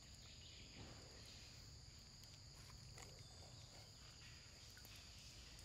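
Near silence: faint outdoor background with a steady high insect drone, likely crickets, and a few faint ticks.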